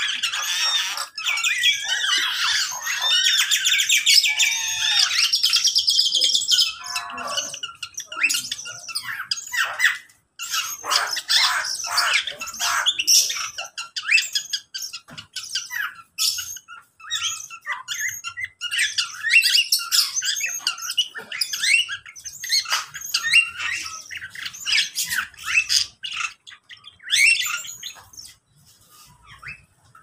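A mixed flock of caged aviary birds, among them Java sparrows, cockatiels and a myna, chirping and squawking all at once. A fast, high trilling fills the first six seconds, then calls come in scattered bursts that thin out near the end.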